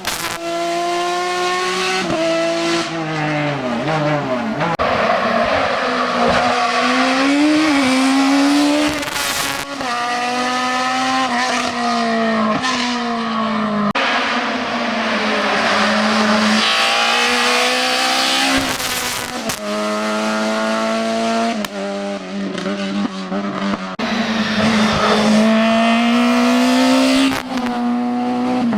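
Racing car engines revving hard up a hill-climb course: the pitch climbs through each gear, drops sharply at every shift and at braking for bends, then climbs again, over several passes of cars.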